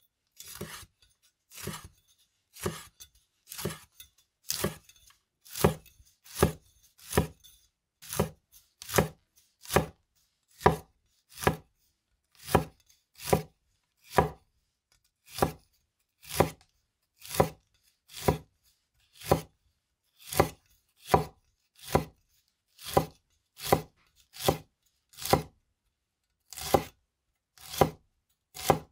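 A cleaver slicing a rolled bundle of green leaves into thin ribbons on a wooden cutting board. It makes steady single chops, about one every three-quarters of a second, with the first few softer and less even.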